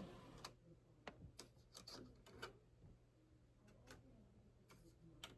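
Near silence with a faint steady low hum and scattered faint clicks at irregular intervals.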